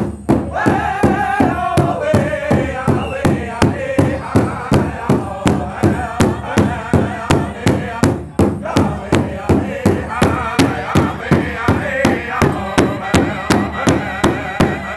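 Powwow drum group singing in unison while striking a large rawhide-headed powwow drum together in a steady, even beat. The sung lines step downward in pitch over the drumming.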